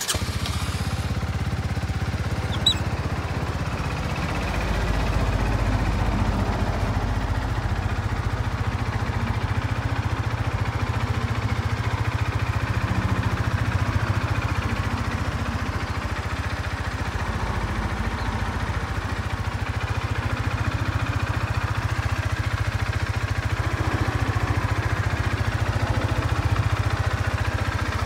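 Honda CB125R's 125 cc single-cylinder four-stroke engine idling steadily.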